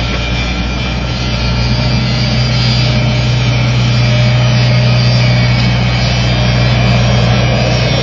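Diesel engine of a 2006 Volvo EW55B wheeled excavator running steadily while the machine works its hydraulics, slewing the upper structure with a loaded bucket. A strong low hum that grows a little louder about two seconds in and holds there.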